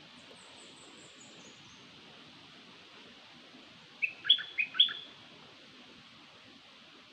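Calls of the bird known in Thai as nok dok taeng, used as a lure call: a faint, thin, high twitter falling in pitch in the first two seconds, then a quick run of four loud short chirps about four seconds in, over a steady hiss.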